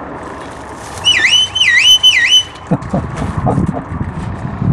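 Shepherd's whistled command to a working sheepdog: a shrill tone that swoops down and back up three times in quick succession, about a second in. Lower, rougher noise follows.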